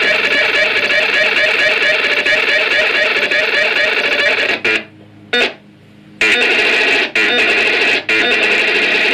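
Boombox Synth 1 synthesizer playing a dense, pitched patch with a fast repeating ripple. It cuts out for about a second and a half midway, then comes back with two brief breaks.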